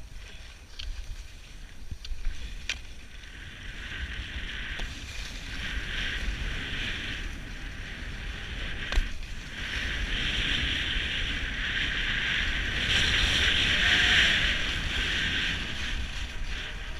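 Skis hissing and scraping over groomed snow while skiing downhill, with wind buffeting the microphone. The hiss grows louder through the second half, and a single sharp click comes about nine seconds in.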